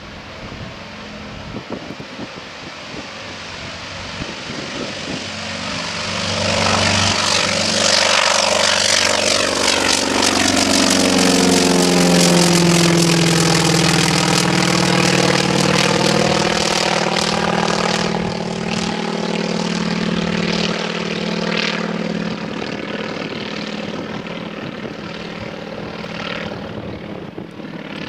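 Grumman FM-2 Wildcat's Wright R-1820 nine-cylinder radial engine and propeller at full takeoff power, growing louder as the fighter rolls and lifts off toward the listener. Its pitch drops as it passes overhead about halfway through, and it fades slowly as it climbs away.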